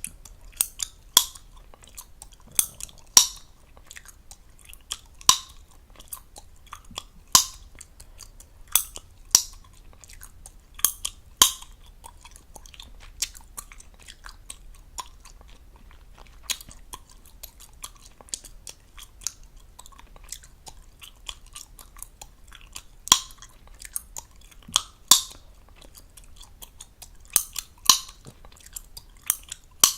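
Fast, close-miked gum chewing: wet smacking with sharp gum pops at irregular intervals, every second or two.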